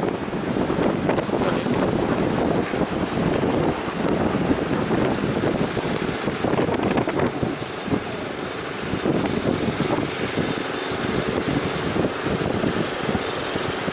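A speedboat's engine running steadily amid strong wind and breaking waves.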